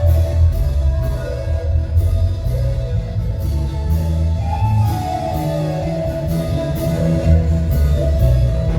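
Live band playing an instrumental passage: a steady drum-kit beat with cymbal strikes two to three times a second, a strong bass line, and a lead melody that slides up and down.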